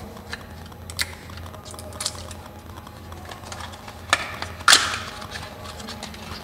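Fingers and fingernails picking at the seal and prising open the flap of a small paperboard cosmetics carton: scattered sharp clicks and crinkles, the loudest a snap a little before five seconds in.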